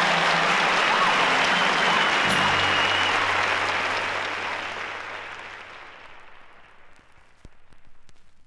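Live audience applauding as a song ends, with the last held notes and a low bass note sounding under the clapping at first. The applause fades out over several seconds, leaving a few faint clicks of vinyl surface noise.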